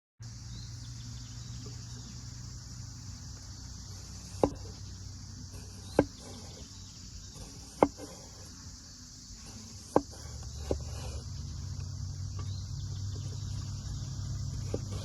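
Steady high-pitched insect chorus over a low rumble, with sharp single knocks about every two seconds from about four seconds in, six in all.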